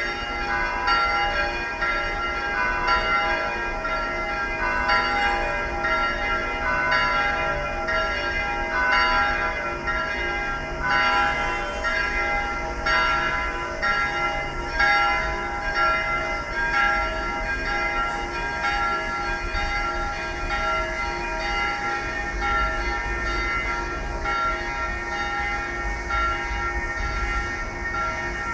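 Church bells in the parish bell tower pealing: several bells struck again and again, their tones overlapping and ringing on into a continuous clanging chord.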